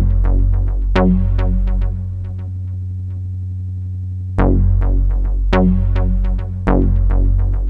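Electronic background music with synthesizer and a steady beat; it thins to a quieter held passage about two seconds in and comes back at full level about four seconds in.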